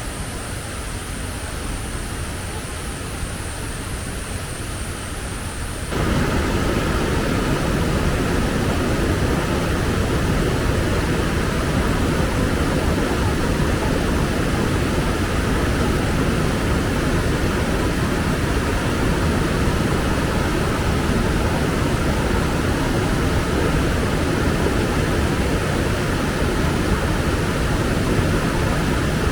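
Strong wind blowing, a steady rushing noise that suddenly gets louder and fuller about six seconds in. Before that a thin, high pulsing whine runs under it and then stops.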